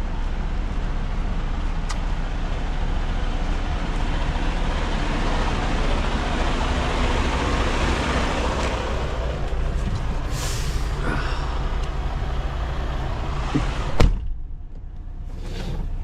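Semi truck's diesel engine running steadily, heard with a short burst of hissing air about ten seconds in. A sharp knock near the end, after which the engine sound drops away.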